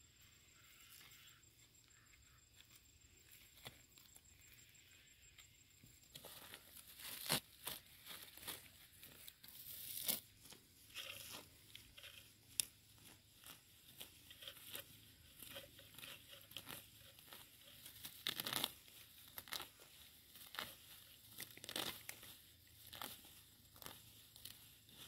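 Hand-weeding: grass and weeds rustling, crackling and tearing as they are pulled up, in irregular bursts that start about six seconds in.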